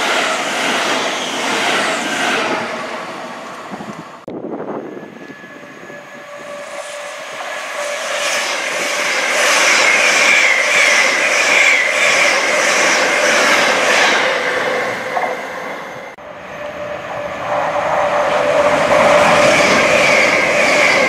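Electric trains passing at speed. First the tail of a Thameslink Class 700 fades out, then it cuts off suddenly about four seconds in. An LNER Azuma high-speed train then rushes past, building to a loud, steady rush of wheels on rail with a whine over it. After a second sudden cut, another Azuma passes near the end.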